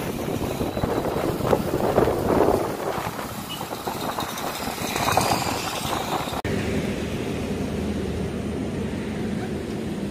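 Traffic noise and wind rushing past the microphone from the pillion of a moving motorbike, behind a bus. About six seconds in it cuts off sharply to a steadier, quieter hum.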